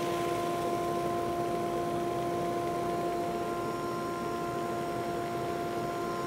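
SuperMax 19-38 combo drum/brush sander running at speed with its flatter head, a steady whine over a hiss, as a seal-coated raised-panel door feeds through on its conveyor to be scuff-sanded before the top coat.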